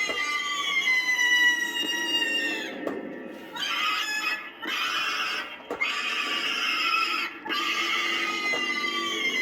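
Twitching Banshee animatronic's recorded scream playing from its speaker: a string of long shrieking cries, each sliding slowly down in pitch, broken by short pauses, over a low steady rumble.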